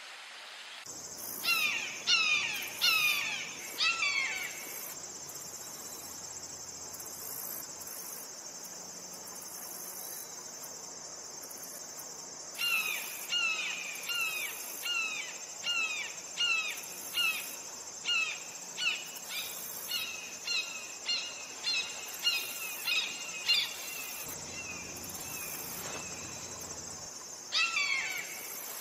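Red-shouldered hawk calling in series of loud screams, each falling in pitch. There are four calls about a second apart near the start, then after a pause a long run of about fifteen calls, and two more near the end. A steady high insect drone runs underneath.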